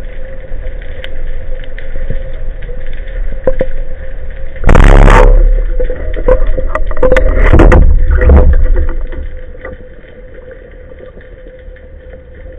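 Band-powered speargun fired underwater: a sudden, very loud snap about five seconds in. A few seconds of loud water rushing and knocking follow before it settles back to a low underwater hum.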